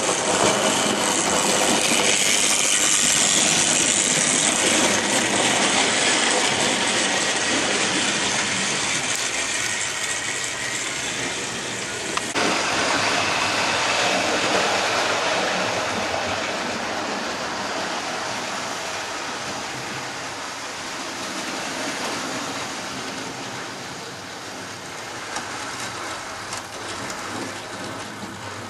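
00 gauge model locomotive running on the layout: a steady whirr of its electric motor with the clatter of wheels on the track. It is loud at first, changes abruptly about twelve seconds in, then slowly fades.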